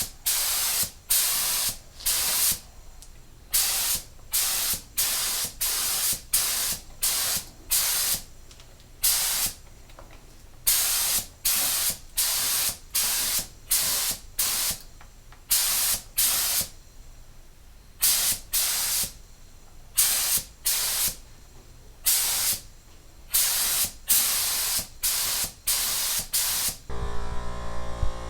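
Aerosol can of Duplicolor metallic clear coat spraying in many short bursts of hiss, each under a second with brief pauses between, as clear coat is laid onto a painted welding helmet. Near the end the spraying stops and a steady electric hum starts.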